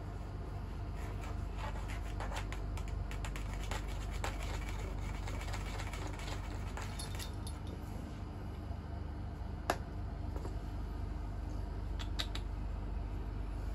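Light scratchy ticks and taps of a feather wand toy and a British Shorthair cat's paws on a wooden floor, many in the first seven seconds, with a single sharp tap about ten seconds in and two more near the end, over a steady low hum.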